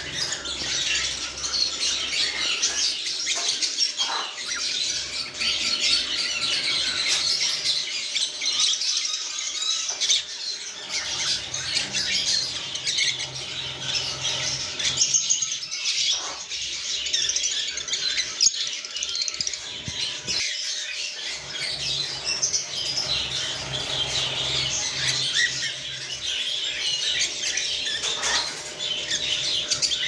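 Many small caged parrots, cockatiels and lovebirds, chirping and chattering all at once in a dense, unbroken high twittering, with sharper single calls here and there.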